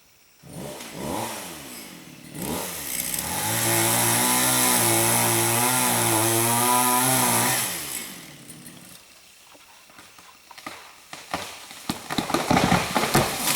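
Two-stroke chainsaw revved twice, then held at full throttle for about four seconds while cutting before dropping back to idle. Near the end, a quick run of loud cracks and snaps: the half-cut tree giving way and crashing down.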